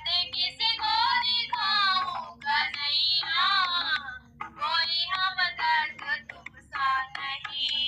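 A high-pitched voice singing a Hindi devotional bhajan in short phrases with wavering, ornamented pitch and brief breaks between lines.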